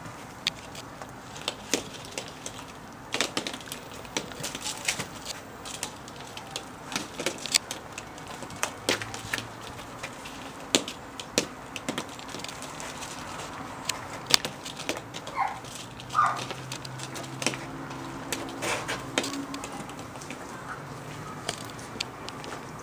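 Hollow plastic ball-pit balls clicking and crackling irregularly as two poodle puppies bat, bite and scatter them in play.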